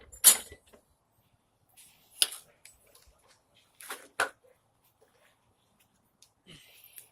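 A few short, sharp clicks and knocks with quiet gaps between them: the lawnmower's engine cover and its loose bolts being handled as the cover is taken off.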